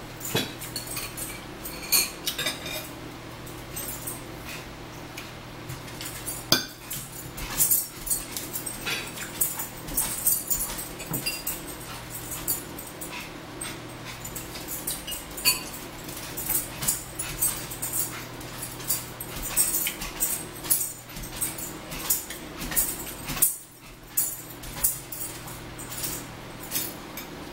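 Eating at a table: forks and a spoon clicking and scraping on plates and bowls, with close mouth sounds of chewing, as irregular sharp clicks over a steady low hum.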